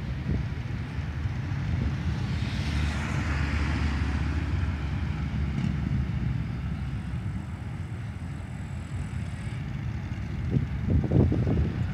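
Street traffic: a steady low engine rumble, with a car passing about three seconds in, its tyre noise swelling and fading. A few short, louder sounds come near the end.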